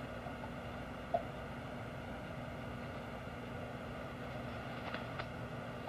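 Steady hiss and low hum of an old home-video recording, with a faint tap about a second in and two faint ticks near the end.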